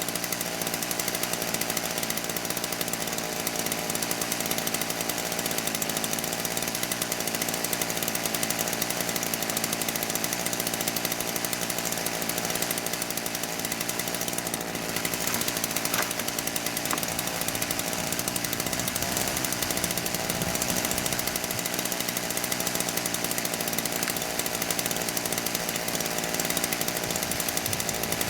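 Chainsaw running steadily, cutting sawmill slab wood into firewood lengths.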